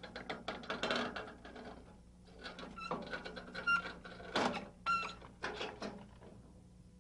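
Metal parts of a portable band sawmill clanking and rattling as it is set up: irregular knocks and rattles, some ringing briefly, over a faint steady hum.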